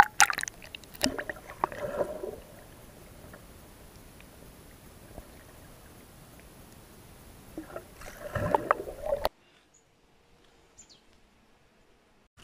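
Water splashing and sloshing around a camera held half under the water surface as a common carp swims off, with splashes near the start, around two seconds in and a louder cluster around eight seconds. The water sound cuts off suddenly, leaving near silence at the end.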